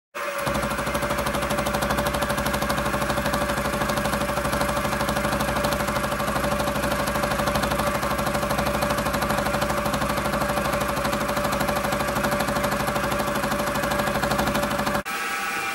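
Sieg SX2.7 milling machine with an end mill cutting an aluminium block: a steady hum of the motor and spindle with a fast, even chatter from the cutter. It starts abruptly and breaks off suddenly near the end into a quieter, different machining sound.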